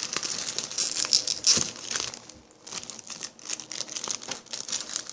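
Plastic wrapper crinkling and rustling as it is handled and pulled off, with a few small clicks and knocks; the crinkling eases off about halfway through, then starts again.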